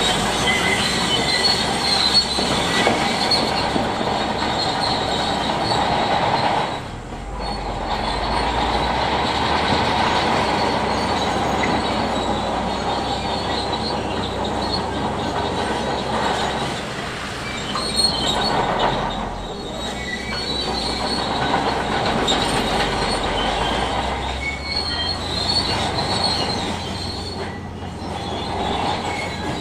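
Shantui crawler bulldozer working, its steel tracks squealing and clanking over the diesel engine. It goes on steadily, easing off briefly three times.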